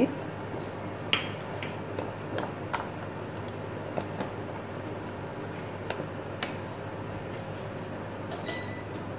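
Wooden spatula stirring a thin mutton curry in a large metal pot, with a few faint scattered taps. Under it runs a steady hiss and a constant high-pitched whine.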